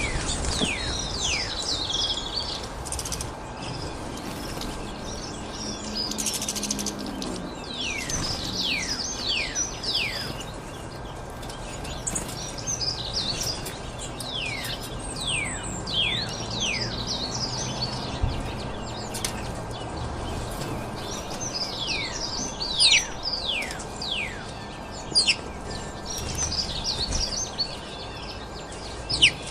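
Many small birds chirping: quick, high, downward-sweeping chirps in overlapping clusters, over a steady background hiss. A few brief louder sounds stand out in the second half.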